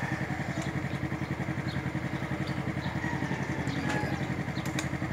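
Yamaha Mio Soulty scooter's single-cylinder engine idling steadily with a fast, even pulse.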